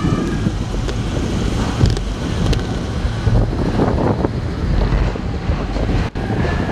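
Arrow Dynamics steel roller coaster train rolling along its track with a steady low rumble, wind buffeting the microphone.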